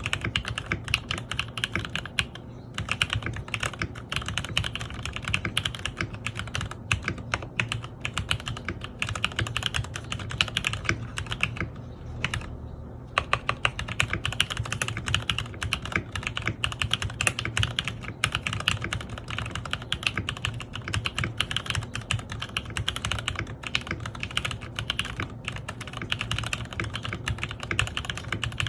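Continuous fast typing on a KC87 mechanical keyboard fitted with Gateron Pro Milky Yellow linear switches, keys struck fairly hard, with a brief pause about twelve seconds in.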